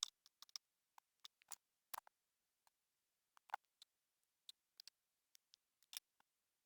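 Faint, irregular small clicks and ticks of a small screwdriver working screws out of a laptop's plastic bottom panel, with one sharper click at the very start.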